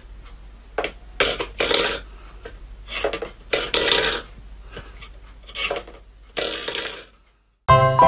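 A series of short, rough vocal bursts, about ten of them in irregular groups of two or three. Music with bell-like tones starts near the end.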